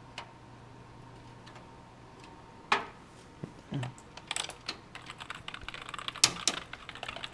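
Computer keyboard being typed on: a single sharp keystroke about a third of the way in, then a quick run of clacking keystrokes from about halfway through. A low steady hum runs underneath.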